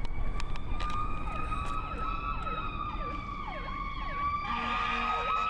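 Fire truck sirens sounding as the apparatus passes. A high, slowly wavering siren tone is overlapped by a fast electronic yelp made of repeated falling sweeps. About four and a half seconds in, a lower, pulsing tone joins.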